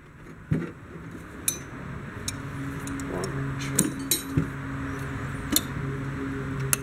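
Scattered metallic clinks of an adjustable wrench and bolts on the tractor's iron as a bolt is fitted and turned. A steady low hum runs underneath from about two seconds in.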